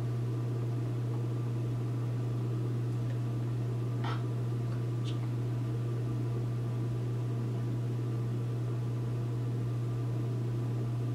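Steady low hum with an even hiss of recording noise underneath, and a faint click about four seconds in.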